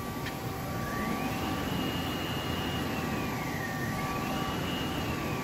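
2006 Okuma V80R CNC vertical lathe's table spindle spinning up under power: a motor whine rises in pitch, holds, dips briefly and climbs again, then starts falling near the end as the spindle slows. A steady machine hum and a short click near the start sit underneath.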